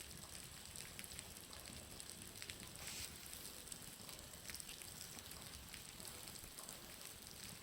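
Water dripping from a building's roof, an irregular patter of sharp little ticks over a steady hiss that sounds much like a crackling bonfire.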